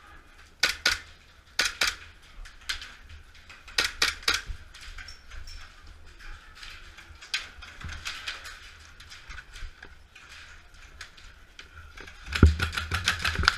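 Airsoft gunfire: scattered sharp cracks, some single and some in quick strings of two or three, with a busier, denser stretch of shots and knocks near the end.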